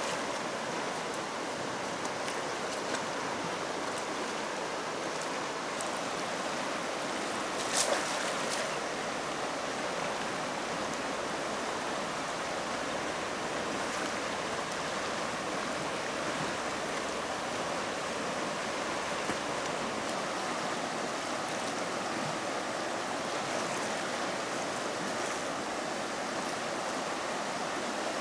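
A swollen, fast-flowing muddy river rushing steadily. One short sharp sound stands out about eight seconds in.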